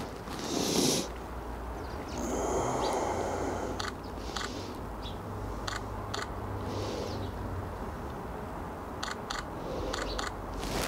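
Camera shutter clicks from a Nikon Z9 firing short bursts, a few quick clicks about four to six seconds in and again near the end, over a steady low outdoor hum.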